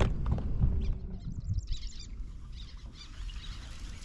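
Small birds chirping from about a second in, over a low steady rumble.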